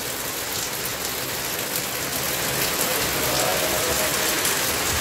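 Heavy, torrential rain pouring down steadily, an even dense hiss of rain hitting the ground and plants.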